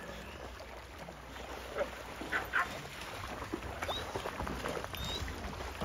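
Dogs swimming in a pool: quiet water splashing and lapping, with a couple of brief faint dog yips about two seconds in, over a low steady rumble.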